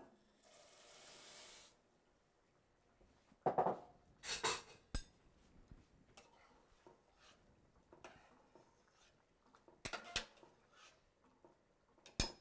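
Small dry pasta shells poured from a glass bowl into a pot of water with a brief soft hiss, then a metal ladle stirring in the pot and clinking against the metal pots a few times.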